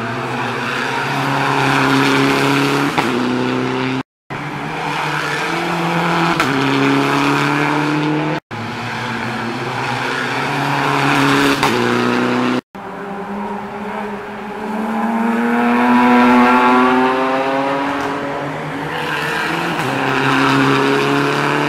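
Rally cars accelerating hard past, their engines revving up and shifting through the gears, the pitch climbing and dropping back at each shift. It comes as four short takes with abrupt cuts between them.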